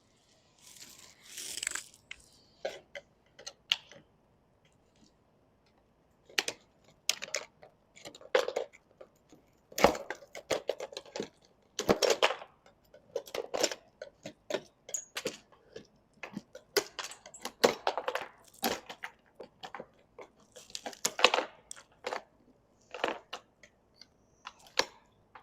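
Dried-out Dicor lap sealant around an RV roof vent being pried and scraped off, cracking and popping off in irregular crunchy snaps and scrapes. The sealant is brittle with age.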